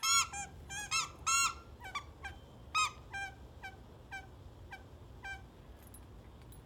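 The squeaker inside a plush moose dog toy honks over and over as a malamute chews it: a quick run of short squeaks that each rise and fall in pitch. They are loudest in the first couple of seconds, then grow fainter and stop a little after five seconds.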